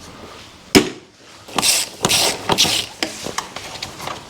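Metal hand tools at work on car bolts: one sharp knock, then three short rasping bursts and a few lighter clicks.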